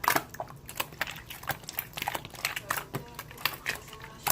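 Rapid, irregular clicks and crackles.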